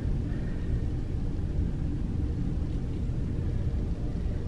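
Steady low rumble with a faint hum: the background machinery and ventilation noise of a cruise ship, heard inside a cabin bathroom.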